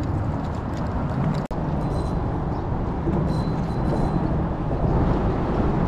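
Wind buffeting the microphone on an open boat: a steady low rumble that cuts out for an instant about a second and a half in.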